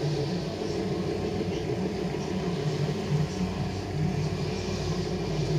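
Petrol string trimmer's engine running steadily while its line cuts weeds from the joints of a paving-stone surface.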